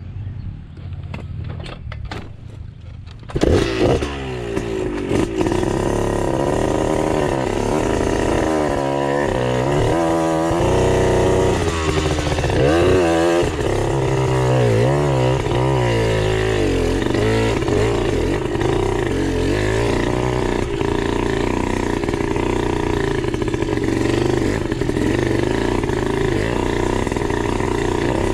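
Dirt bike engine under way, revving up and down with the throttle. It is quieter and muffled for the first three seconds or so, then loud and steady.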